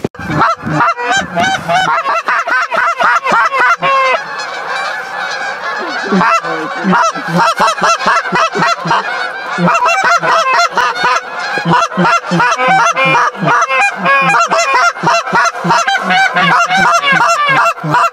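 Large flocks of wild geese flying overhead, many birds honking at once in a dense, continuous chorus.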